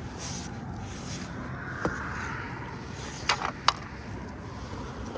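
A few sharp clicks and scrapes over steady background noise: one about two seconds in and two more close together a little after three seconds.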